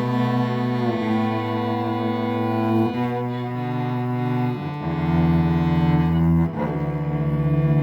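Cello bowed in long, sustained low notes that change pitch every second or two, played as spooky sounds.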